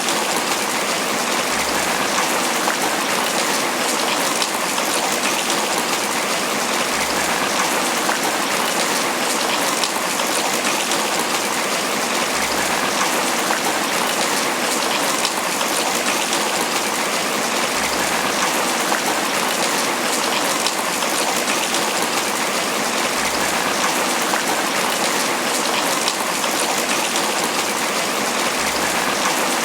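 Steady tropical rain falling on banana leaves: a dense, even patter of drops with no let-up.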